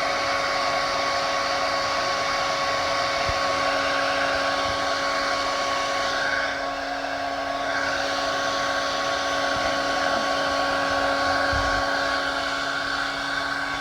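Handheld hair dryer running steadily, a fan rush with a steady motor whine, used to heat and soften the old tank-pad adhesive on the motorcycle tank. It drops a little in level briefly about halfway through, then picks up again.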